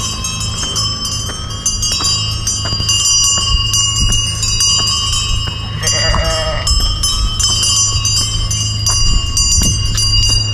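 Bells on a small flock of sheep clanking and jingling continuously as the sheep feed, with one sheep bleating about six seconds in.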